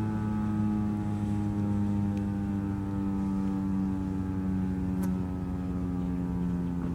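Federal Signal 2001-130 rotating electromechanical siren winding down at the end of its test: a low tone with many overtones, slowly sliding lower in pitch.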